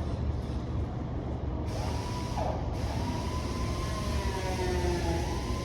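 Steady low rumble of background noise, with a faint wavering, siren-like tone that slowly rises and falls from about two seconds in.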